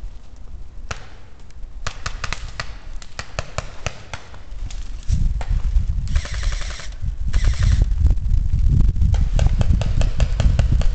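Air guns firing in a skirmish: scattered sharp shots, with two fast strings of rapid shots about six and seven and a half seconds in. A low rumble on the microphone starts about five seconds in.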